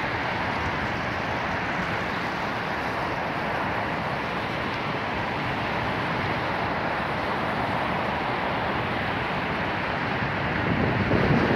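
Steady outdoor wind noise over a wide river, with a gust buffeting the microphone near the end.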